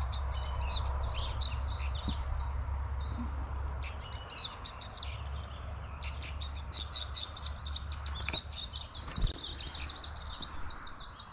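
Reed warblers singing a fast, chattering song of short repeated notes, busiest in the second half, over a low rumble of wind on the microphone.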